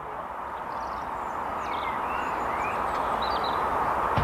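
Peppercorn A1 Pacific steam locomotive 60163 Tornado approaching with its train: a steady rushing noise that grows steadily louder.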